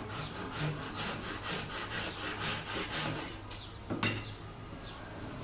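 A hand saw cutting through a wooden board in quick back-and-forth strokes, about three rasps a second. The sawing eases after about three and a half seconds, with one sharp knock about four seconds in.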